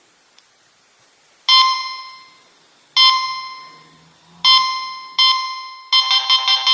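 Nokia 3220 mobile phone playing a ringtone: four bell-like notes, each ringing out and fading, about a second and a half apart with the fourth coming sooner. Near the end a busier, faster melody sets in.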